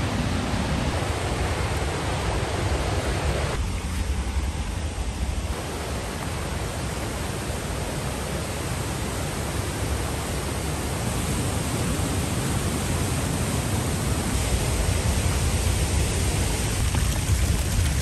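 Steady rushing of a waterfall, white water cascading fast over rocks. The level shifts slightly a few times.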